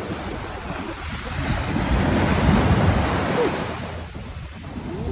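Ocean surf washing up on the beach, with wind buffeting the microphone; the rush swells about halfway through and eases off near the end.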